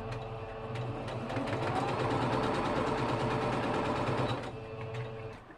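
Electric sewing machine stitching at speed, a steady hum with rapid needle strokes, as quilt block pieces are chain-pieced through one after another. It picks up speed about a second in and slows near the end.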